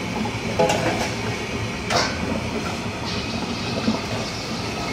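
High-output gas wok burner running with a steady rushing noise under a carbon-steel wok, with sharp metal clinks of a ladle or utensil on the wok about one and two seconds in. About three seconds in, a high sizzle starts as an egg goes into the hot oil and begins frying.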